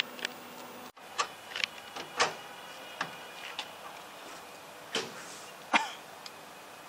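Irregular light clicks and knocks, about ten of them, some with a short metallic ring, around a battery crush tester's steel chamber.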